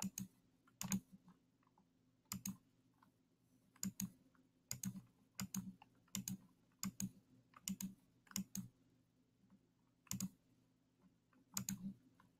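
Computer mouse clicking, sharp short clicks, many in pairs, at uneven gaps of about a second, as the bars of an on-screen xylophone are clicked; the xylophone's notes themselves are not heard. A faint steady hum lies underneath.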